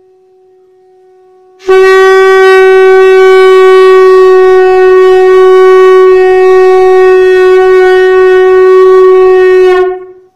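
Shankh (conch shell) blown in one long continuous note on a single breath: the first step of shankhnaad. After a faint start it swells to a loud, steady, unwavering tone about two seconds in, holds for about eight seconds, and tails off near the end.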